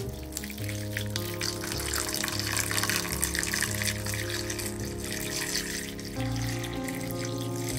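Thin stream of water pouring into a pot packed with raw daikon and pork-belly rolls, splashing steadily over them, a little heavier in the middle, with background music playing.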